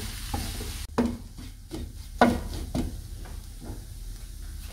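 Wooden spatula stirring and scraping a shredded beef and onion filling in a frying pan. A light sizzle stops about a second in, followed by a run of separate scraping strokes.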